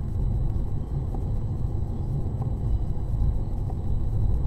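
Steady low rumble of a car driving along a road, picked up by a dashcam microphone inside the cabin.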